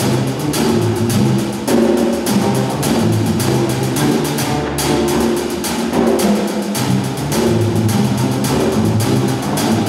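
Student jazz big band playing live, with saxophones and brass over a drum kit keeping a steady beat.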